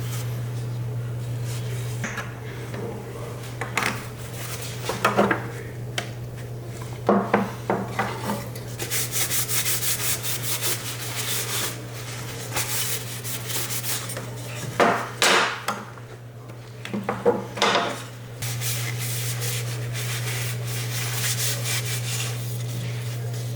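Quick runs of fast rubbing strokes, broken by a few sharp knocks and clatters, over a steady low hum.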